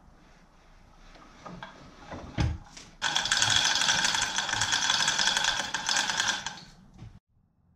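Manual chain hoist worked by hand: the hand chain is pulled hand over hand, giving a fast, even metallic clatter of chain links running through the hoist for about four seconds. It starts suddenly about three seconds in and stops just before the end, with one knock shortly before it starts.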